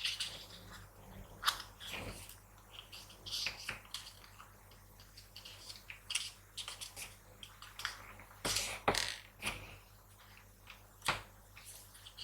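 A sheet of paper being folded and creased by hand: irregular crinkling and rustling with sharp creasing clicks, busiest about two thirds of the way through.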